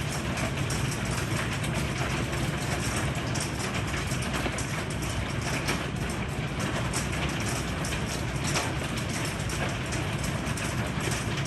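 Heavy thunderstorm rain pouring steadily, dense sharp ticks of impacts on hard surfaces over a steady low rumble of the downpour.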